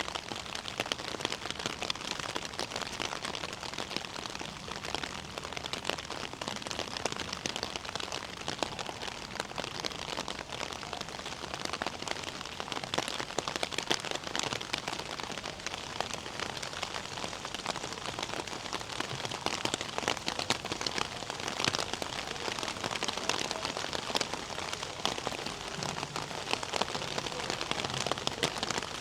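Steady rain falling, a dense crackle of many small drop impacts at an even level.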